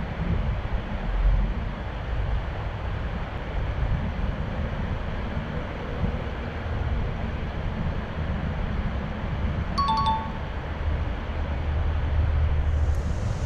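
Steady low rumble of wind on the microphone. About ten seconds in, a short two-note chime sounds, a higher note then a lower one.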